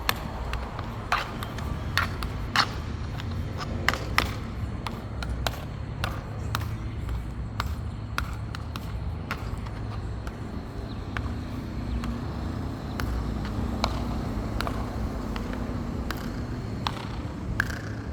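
Metal high heels clicking on a hard floor in irregular steps, about one to two sharp clicks a second, over a steady low rumble.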